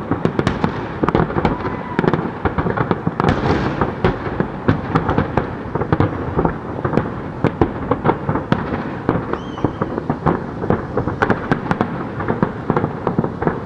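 Aerial fireworks going off in rapid succession: many sharp bangs and crackles a second over a continuous low rumble.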